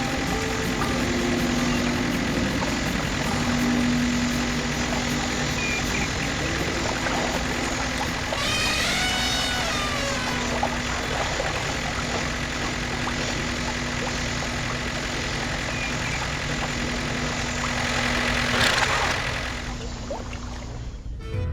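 Mini tractor's small motor running steadily with a constant hum. A brief gliding pitched sound cuts in about eight seconds in, and the running sound fades away near the end.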